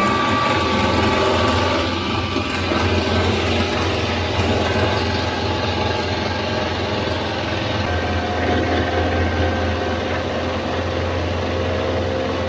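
Woodmaster 725 25-inch molder planer running with a steady motor hum, its cutterhead planing a walnut slab with a loud hiss of cutting. The cutting hiss eases about halfway through while the machine keeps running.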